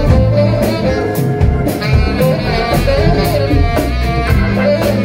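Live jazz combo playing: Hammond B3 organ and tenor saxophone over bass and drums, with a steady cymbal beat.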